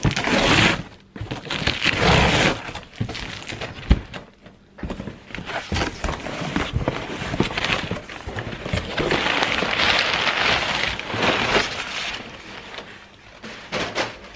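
A cardboard box being unpacked: tape ripped along the lid, the flaps opened, then crumpled brown packing paper rustled and pulled about. There is a sharp knock about four seconds in.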